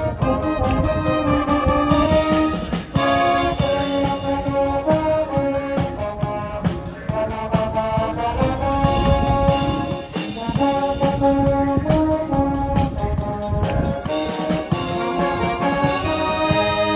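A brass band with tubas plays a tune, its sustained brass notes moving every second or so, while a drum kit keeps a steady beat.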